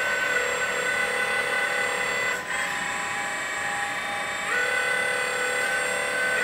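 Electric hydraulic pump of a 1/14 scale RC excavator whining steadily as the boom and arm move. Its pitch drops about two and a half seconds in and steps back up a couple of seconds later as the control valves open and close.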